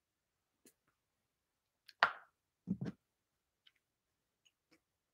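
Fragrance bottles being handled: one sharp click about two seconds in, then two quick soft knocks about half a second later.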